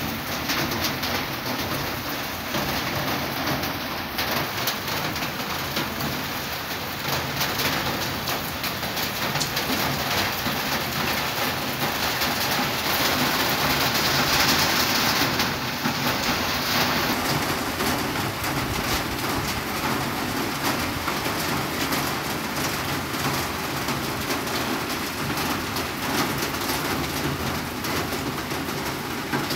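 Steady rain-like hiss, dense with fine crackles and swelling midway, with a bird cooing.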